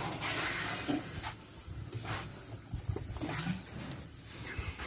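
Bull African elephant in musth at close range, making low rumbling sounds mixed with bursts of breathy noise and a few sharp knocks.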